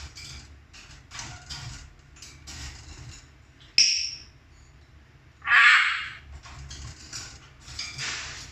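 Birds giving repeated short, harsh squawking calls, with the loudest squawk about two thirds of the way through and a sharp click with a brief high note just before it.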